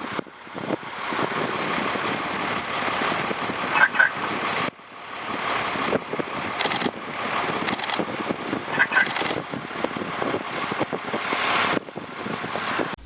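Twin turboprop engines of a U.S. Coast Guard HC-144 Ocean Sentry (CASA CN-235) running as it rolls out on the runway after landing, heard as loud steady engine and wind noise. The sound breaks off abruptly twice, about five seconds in and near the end, with brief voices in the background.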